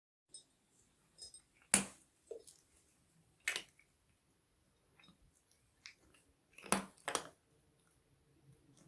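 Kittens chewing crunchy dry cat food: scattered sharp crunches at irregular intervals, the loudest about two, three and a half and seven seconds in.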